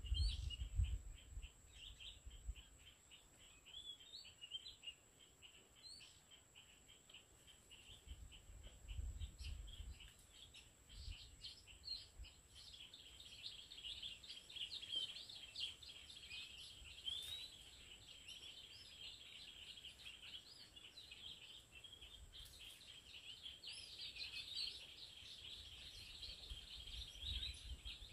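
Small birds chirping and calling with quick, repeated short whistled notes, busiest in the second half, over a faint steady high whine.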